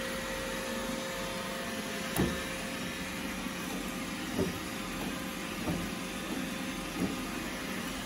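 iRobot Roomba 976 robot vacuum running steadily as it edge-cleans, with four soft knocks spread through the run.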